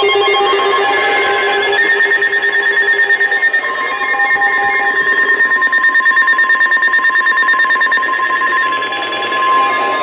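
Emergency Alert System alert tones for a special marine warning, sounding at once from several weather radio and broadcast stations. Steady alarm tones overlap and beat against each other, and another long steady tone joins about four seconds in.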